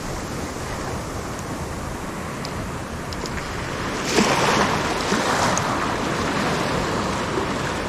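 Sea waves washing, a steady rush of surf that swells louder about four seconds in.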